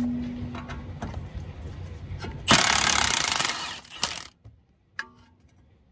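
Milwaukee cordless impact wrench hammering for about a second as it spins out a brake caliper bracket bolt, followed by a couple of metallic clinks.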